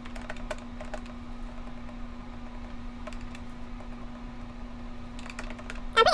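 Keys on a keypad tapped in short quick runs as figures are entered, over a steady low hum. A louder pitched cry breaks in at the very end.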